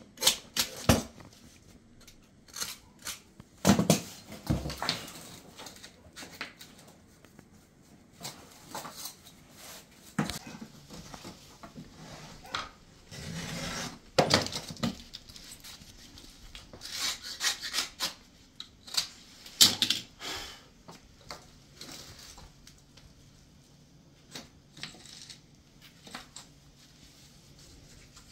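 Wooden floor planks clacking and knocking as they are handled and laid loose for a dry fit, with irregular sharp knocks and a few short scrapes against a plank's edge.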